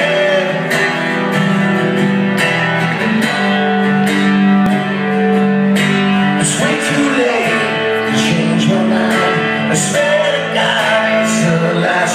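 Acoustic guitar played live, with a man singing over it.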